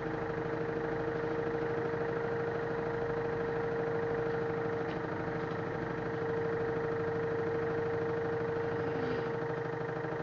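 LG F1089ND direct-drive washing machine running with a steady whine over a hum, its drum turning at a constant speed on the spin.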